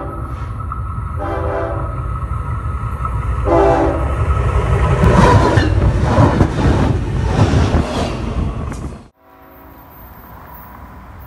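Diesel locomotive horn sounding a chord in three blasts, then the train passing right over a microphone low on the track, a loud rumble with wheel clatter. It cuts off suddenly near the end, leaving a much quieter scene with a faint distant horn.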